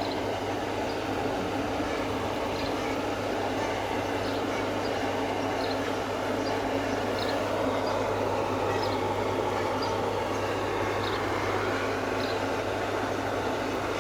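Pool vacuum pump running steadily: a constant motor hum under an even rushing noise, with faint short high chirps about once a second.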